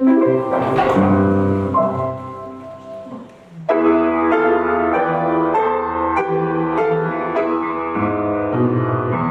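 Piano music playing in phrases of chords and melody, quieter for a moment around three seconds in, then louder again with a steady bass line.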